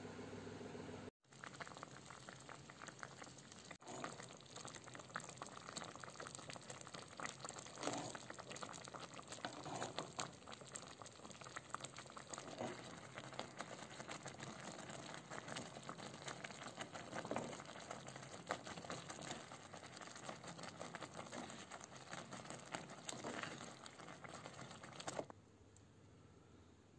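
Pot of water at a boil with sago pearls cooking in it: dense bubbling and popping that begins about a second in and cuts off suddenly near the end.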